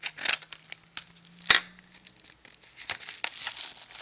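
Manila paper mailer envelope being torn open and rustled: a series of short rips and crinkles, the loudest a sharp tear about a second and a half in.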